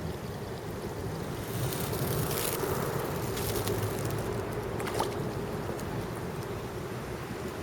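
Steady rush of running water from the brook feeding a park pond, with wind on the microphone; a brighter hiss swells about two seconds in and a sharp tick comes near five seconds.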